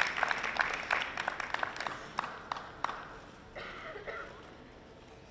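Sparse applause from a small audience, individual claps thinning out and dying away over about three seconds, leaving quiet rink ambience.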